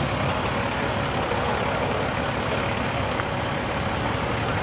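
Steady low rumble of a fire engine's diesel idling at the scene, with a faint steady hum over it and street traffic noise.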